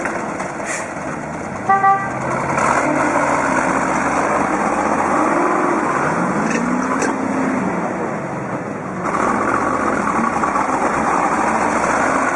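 Four-wheeled armored vehicle's engine running as it works through deep mud, the revs rising and falling. A short horn toot sounds about two seconds in.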